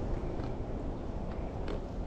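Footsteps on a woodland dirt trail, a few faint crunches, over a low rumble of wind on the microphone.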